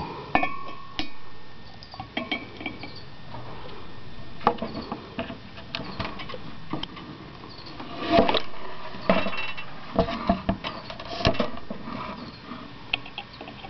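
Metal washers and bolts clinking and knocking against a glass jar as a homemade electrolysis cell's electrode stack is lowered in and its wooden crossbar set on the rim. The clinks are scattered, with a thicker cluster of knocks about eight to eleven seconds in.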